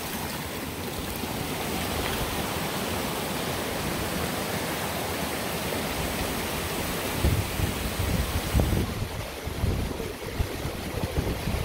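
Zealand Falls' water cascading over granite ledges, a steady rushing. Low buffeting rumbles come and go in the second half.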